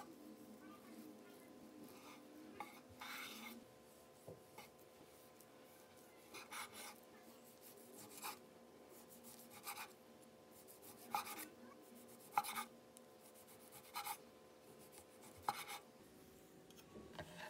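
Chef's knife slicing and then dicing a slab of bacon on a bamboo cutting board: a series of soft cuts, each ending in a light knock of the blade on the wood, about one every second or two.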